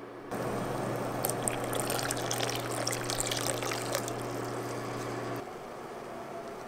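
Water at a rolling boil in a pot, with water poured in from a measuring cup: bubbling and splashing over a low steady hum. It starts suddenly about a third of a second in and cuts off about five seconds in.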